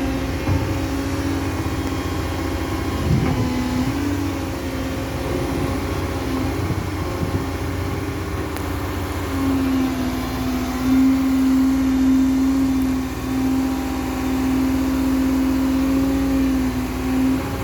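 Caterpillar M315F wheeled excavator working, its diesel engine running steadily under load. A strong, steady whining tone rides over the engine and grows louder from about halfway through.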